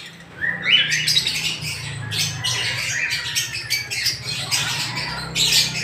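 Caged lovebirds chattering, a dense run of rapid, shrill squawks and chirps from many birds at once, over a steady low hum.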